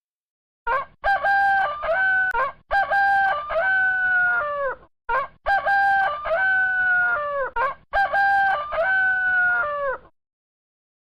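Rooster crowing four times in a row, each crow a long cock-a-doodle-doo that falls away at the end; it stops about ten seconds in.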